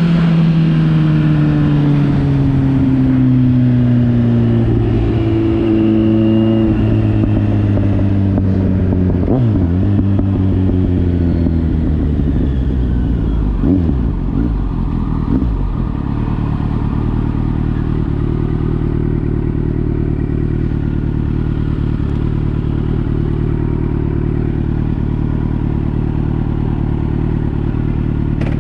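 Kawasaki Z900 inline-four through a replica Akrapovič aftermarket exhaust: the engine note falls steadily as the revs drop over the first ten seconds, a few short throttle blips come around ten, fourteen and fifteen seconds in, then it settles into a steady idle.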